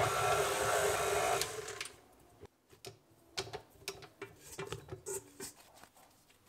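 A small electric motor runs steadily for about two seconds and stops abruptly, followed by scattered light knocks and handling sounds.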